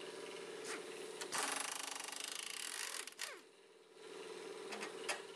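An air tool running in a loud, rattling, hissing burst of about a second and a half, starting about a second in, over a steady machine hum. The hum drops out briefly a little after the burst.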